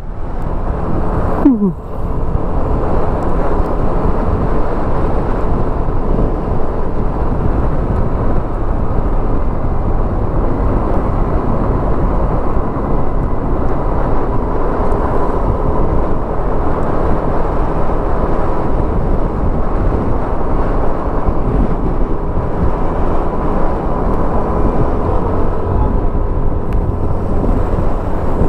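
Steady road noise from riding a Yamaha motor scooter: wind rushing over the microphone, with the engine and tyres underneath and a faint steady whine. About a second and a half in, the sound dips briefly with a short falling sweep.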